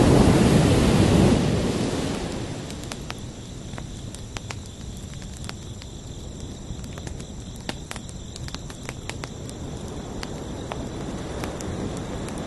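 Ocean wave breaking and washing out, fading over about two seconds into a quieter backwash with scattered sharp clicks, while crickets chirp steadily as high thin tones; the next wave begins to swell near the end.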